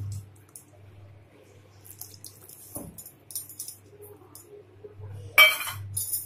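Flat metal spatula scraping and clinking against a kadai while yogurt is stirred into a thick masala paste, with one louder scrape about five seconds in.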